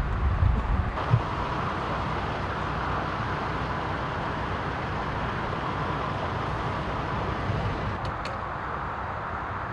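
Steady roadway traffic noise, with wind rumbling on the microphone at the start that dies away after about a second.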